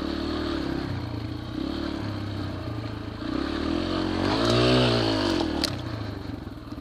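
Yamaha TTR125 dirt bike's small single-cylinder four-stroke engine running as it is ridden, the revs rising and falling with the throttle. The loudest is a rev that climbs and drops back about four and a half seconds in.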